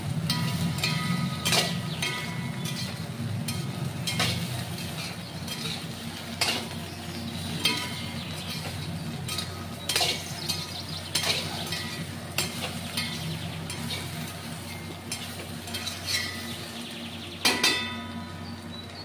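Metal spoon or ladle stirring in a metal cooking pot, clinking against its side at irregular moments about once a second, some clinks ringing briefly, with one louder clink near the end. A steady low hum runs underneath.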